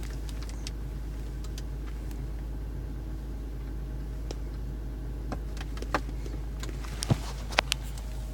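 A steady low hum inside a pickup's cab. In the last three seconds come a handful of sharp clicks and taps, the loudest about seven seconds in, as an aluminum knurled radio knob is pushed onto the radio's control shaft.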